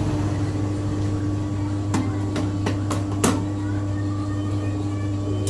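Electric dough mixer (7 kg-capacity CDI) motor running with a steady hum. A few sharp clicks and knocks come about two to three seconds in.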